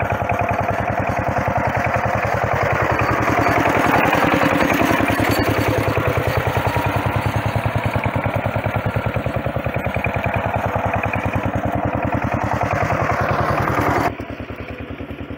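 Single-cylinder engine of a walking tractor (power tiller) running steadily under load, driving a sugarcane crusher, with a rapid, even beat. About a second before the end it drops sharply in loudness.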